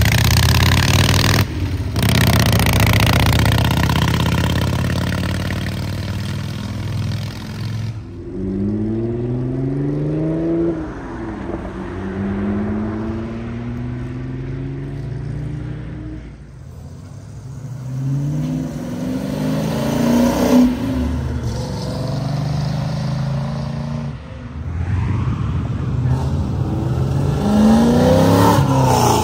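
Cars accelerating away one after another. A loud, rumbling engine fills the first several seconds. Then engine notes climb in pitch through the revs, one dropping sharply at a gear change about eleven seconds in, and two more cars climb in pitch later on.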